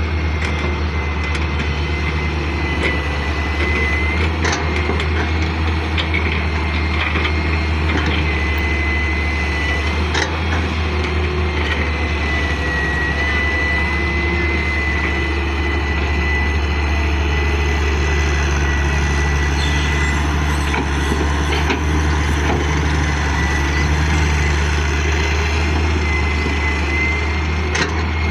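Hitachi excavator's diesel engine running steadily at work, with a thin high whine over it and scattered sharp knocks every few seconds.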